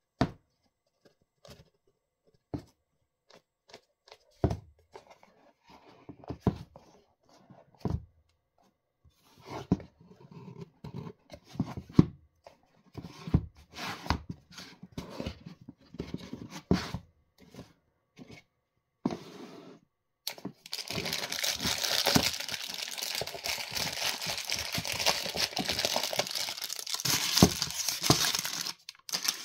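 Cardboard smartwatch box being handled and opened: scattered knocks and scrapes as the box is gripped and its lid worked off, then, about two-thirds of the way in, several seconds of continuous loud crinkling and rustling of the packaging.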